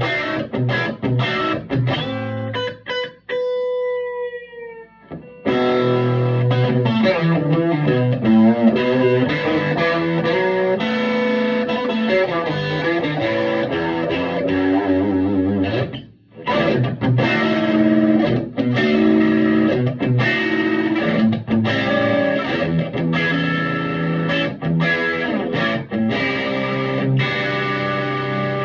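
Electric guitar played through a Vintage Sound Amp with a slightly overdriven tone: riffs and chords, with a bent note held and fading out about four seconds in and a brief pause near the middle.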